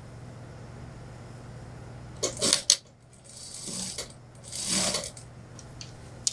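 Suit-trouser cloth rustling and sliding across a sewing machine bed as it is handled, in two short swells after a few sharp clicks about two seconds in, over a steady low hum.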